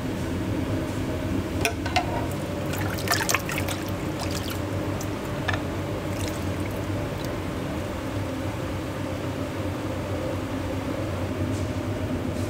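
Kitchen work sounds: liquid being poured over a steady mechanical hum, with a quick cluster of clinks and clatter about two to three and a half seconds in and one more clink later.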